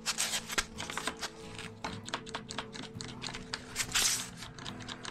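One-handed bar clamps being squeezed and shifted on a stack of steam-bent pine boards: a run of quick clicks and knocks, with a louder burst of noise about four seconds in, over background music.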